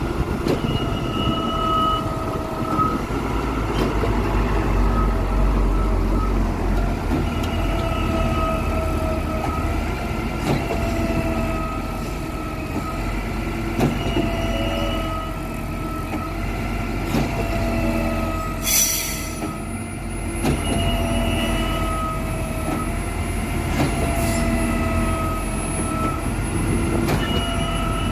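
Concrete pump at work: a low engine rumble under a high whine that repeats in segments of a few seconds, with a sharp knock every few seconds as the pumping cycle changes over. A brief hiss about nineteen seconds in.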